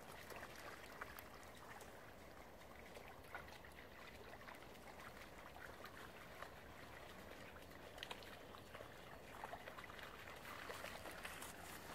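Faint water sounds of a Siberian husky wading and drinking in a shallow flood pool: small scattered splashes and laps, a few more of them in the second half.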